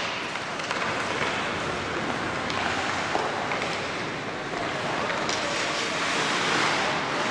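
Ice hockey skates carving and scraping across the rink ice: a steady hiss, with a few faint clacks of sticks on the puck.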